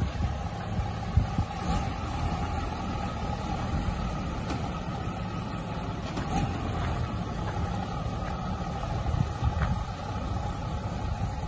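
Mitsubishi Fuso truck's 6D17 six-cylinder diesel engine running steadily at an even speed.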